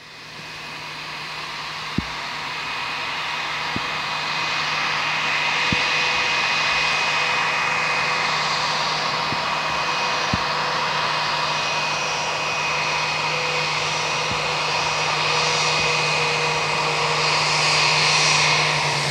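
Twin IAE V2500 turbofans of a McDonnell Douglas MD-90-30 taxiing at idle: a steady jet whine with a low hum under it, fading in over the first few seconds. A sharp tick about two seconds in and a few fainter ones later.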